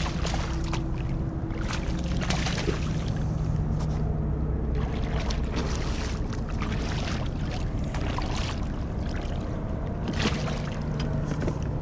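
Water splashing and sloshing in repeated bursts as a hooked striped bass thrashes at the surface beside a kayak, over a steady low hum.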